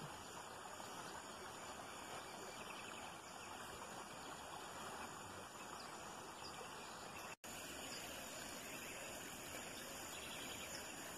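Faint, steady running water of a shallow creek flowing over stones, cutting out for an instant about seven seconds in.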